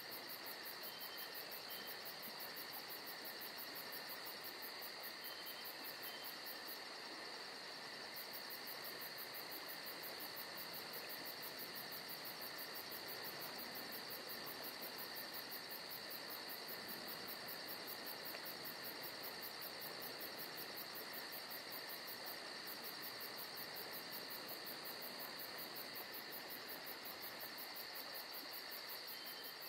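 Faint, steady chorus of chirring insects: a constant high buzz with a very fast, even pulsing trill above it.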